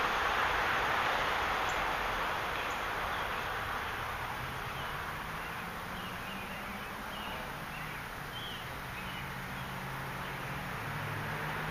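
Steady outdoor background hiss with a few faint high chirps. A low hum comes in about halfway through.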